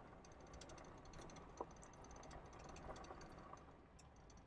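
Near silence: faint background hiss with scattered soft ticks and one small click about a second and a half in.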